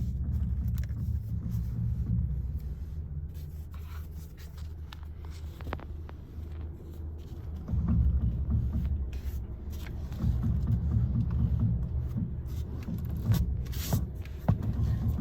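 Low rumble of a 2016 Volkswagen Jetta running, with scattered sharp pops from the steering as the wheel is turned, a couple of the loudest near the end. The popping is the fault noise that comes with turning the steering wheel.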